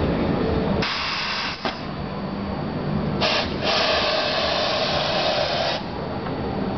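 Compressed air hissing from the Corghi AG50 tyre changer's pneumatic helper arm as its bead-pressing disc is worked: a short burst about a second in, then a longer one of about two and a half seconds starting just after three seconds. A steady low hum runs underneath.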